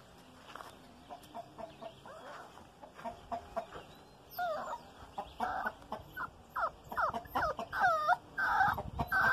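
Chickens clucking: a run of short, rising-and-falling calls that starts faint and becomes frequent and louder from about four seconds in.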